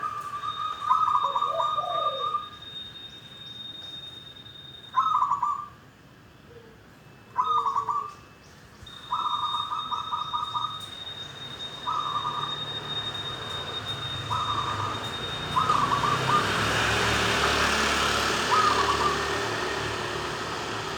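Zebra dove cooing: about eight short, rapid trilled coos spaced a second or two apart, with a steady thin high tone behind them. A rumble of passing traffic grows over the second half.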